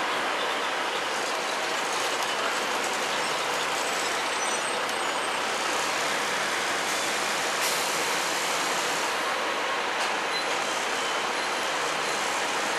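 Double-decker bus engine idling steadily while the bus stands at the stop.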